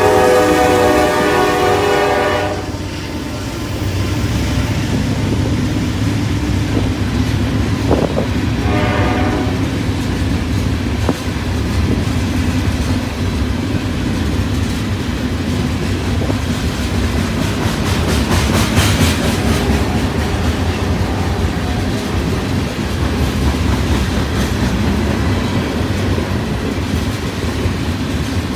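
A freight locomotive's horn sounds and cuts off about two and a half seconds in, then gives a shorter, fainter blast about eight seconds in. Throughout, a CSX coal train's hopper cars rumble past with steady wheel clatter.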